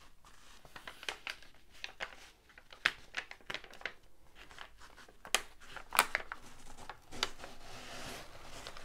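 Release paper being peeled back off the sticky glue of a diamond painting canvas, crinkling and crackling in a string of sharp snaps, loudest about five and six seconds in, then a continuous rustling peel near the end.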